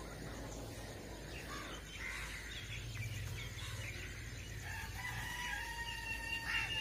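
A rooster crowing once, a single long held call about five seconds in, with small birds chirping before it.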